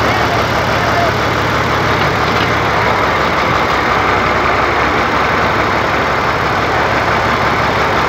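Engine of a tractor-mounted backhoe running steadily and loudly while the backhoe digs and loads soil.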